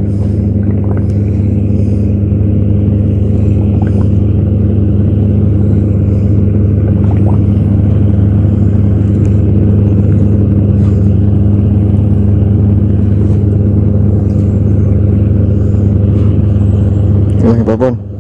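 A motor engine running steadily with a low, even drone, holding one speed without revving.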